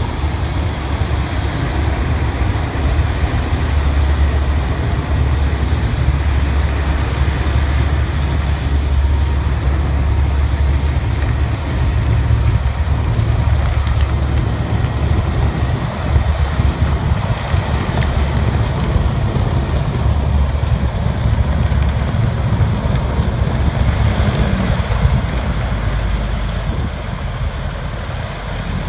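Griffon Hoverwork 12000TD hovercraft running on its cushion across the beach, its engines and two large ducted propellers making a loud, steady drone with a deep low hum. It gets a little quieter near the end as the craft slows to stop.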